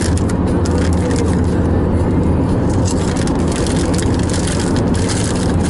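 Steady road and engine noise inside a moving car's cabin, with a few crinkles of a chip bag being reached into.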